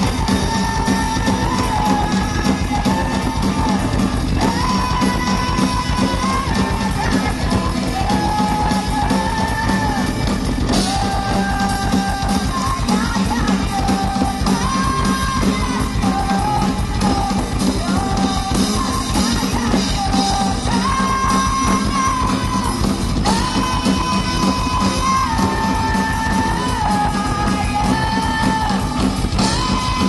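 Live rock band playing with electric guitars and drum kit, a melody of long held notes moving step by step over the steady band sound.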